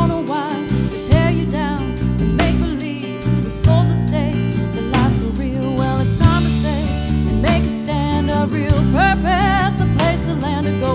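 A song with a singer's voice over strummed guitar and a steady beat.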